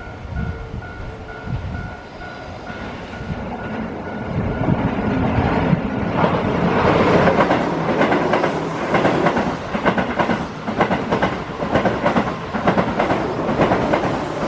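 A Keihan electric train passes close by, its wheels clattering over the rail joints. The clatter builds from about four seconds in and is loud from about six seconds on. Before that, a level-crossing warning bell rings in an even, repeating beat, and it is lost under the train.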